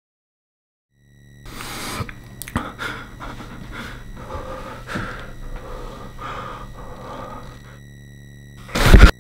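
After a second of silence, a steady hum of several pure tones sets in, with a person's heavy, uneven breathing over it, swelling about once a second. A sudden loud burst comes just before the end.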